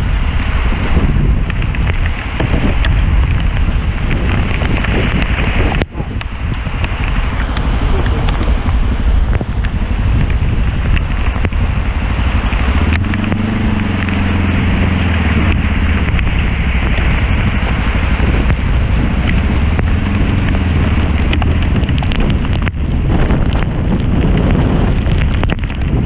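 Motorcycle riding in heavy rain, with wind buffeting the microphone, rain and road spray over the engine running. The engine note stands out more plainly for several seconds in the middle.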